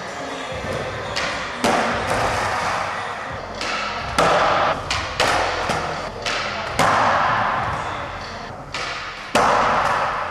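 Skateboards being ridden: a steady rush of wheels rolling, broken by a series of sharp cracks and thuds from tail pops, landings and boards hitting the ground, about seven in all, each ringing out with an echo.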